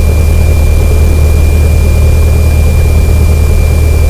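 Cessna 172N's four-cylinder Lycoming O-320 engine and propeller running steadily at low taxi power: a constant low drone with a thin steady whine above it.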